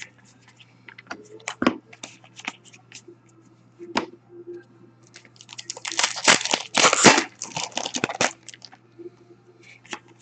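Trading card pack wrappers being torn open and crinkled, with scattered clicks and rustles as the cards are handled. There is a dense burst of tearing and crinkling about six seconds in that lasts about two seconds.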